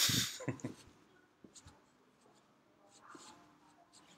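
Rustling and scratching noises heard over a telephone line: a loud burst of rustling right at the start, then fainter rustles and a few small clicks.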